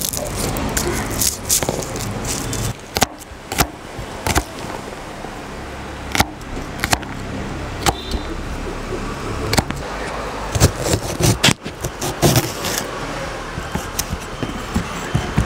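Battered cubes of steamed quail egg sizzling in hot oil in a kadai, over a low steady rumble, with frequent irregular clinks and scrapes of a perforated steel slotted spoon against the pan as the pieces are turned.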